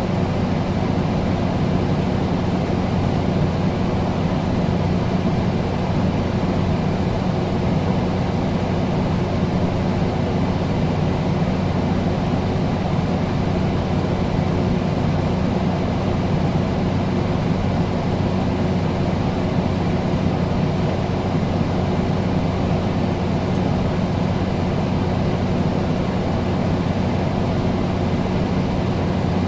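Air conditioner running steadily: an even rush of air over a low, constant hum.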